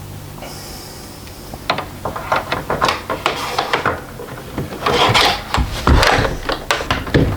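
Handling noises: a quick run of clicks, knocks and rubbing scrapes, as of hard parts being handled and fitted. The busiest and loudest stretch comes about five seconds in, after a second or so of a steady low hum.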